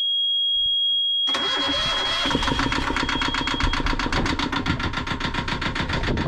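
Yanmar marine diesel inboard starting: the engine panel's warning buzzer sounds a steady high tone, then the engine fires about a second in and settles into a rapid, even running knock. The buzzer fades out a couple of seconds after the engine catches.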